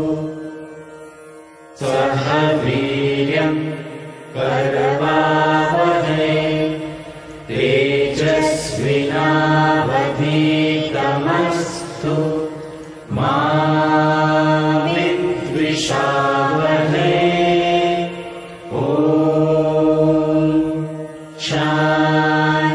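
A group of men and women chanting a prayer in unison, in long sung phrases with short pauses for breath between them.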